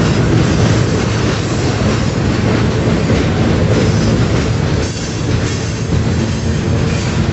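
Freight train cars, covered hoppers and boxcars, rolling slowly past: a steady rumble of steel wheels on the rails.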